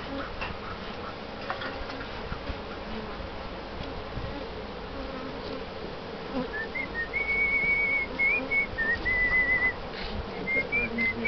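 Honey bees buzzing steadily around an opened hive, with a few light clicks. About halfway in, someone whistles a string of held notes, louder than the bees.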